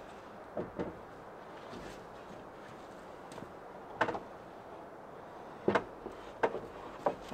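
Scattered knocks and clunks of things being handled and set down at a workbench, over a faint steady background hiss. The loudest knock comes about four seconds in, with a close pair a little before six seconds and lighter ones around them.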